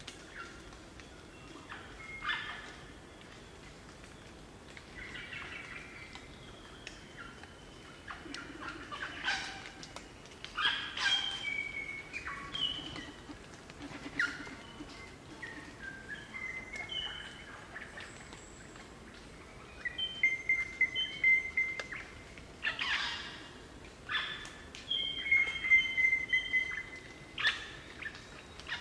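A group of crimson rosellas calling: harsh chattering and squeaky calls mixed with clear, bell-like whistled notes. The longest runs of held whistled notes come about twenty seconds in and again near the end.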